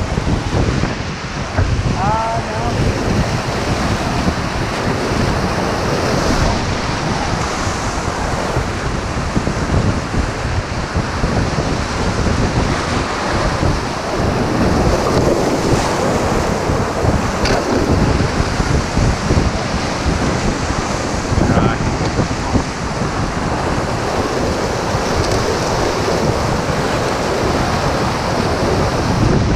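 Whitewater rapids rushing steadily around a raft, with wind buffeting the microphone.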